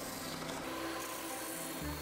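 Bench belt sander running, with a small wooden block pressed against the sanding belt, a steady rubbing under background music with held notes.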